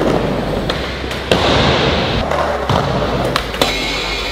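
Skateboard wheels rolling across a smooth skatepark floor, with a thump about a second in and a few knocks. Near the end a truck scrapes along a metal flat rail in a crooked grind.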